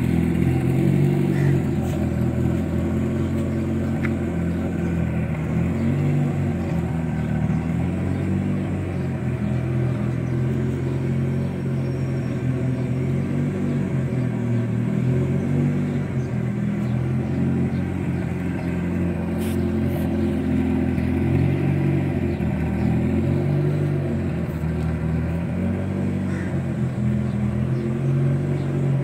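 Mitsubishi Lancer Evolution VI Tommi Mäkinen Edition's turbocharged 2.0-litre four-cylinder engine running steadily with a low drone, its pitch shifting slightly now and then.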